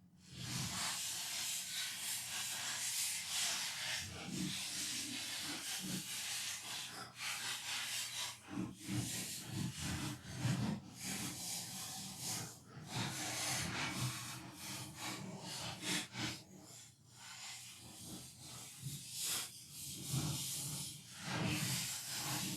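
A brush sweeping dust out of a PlayStation 4's plastic casing: an uneven hiss of strokes that runs on with short breaks.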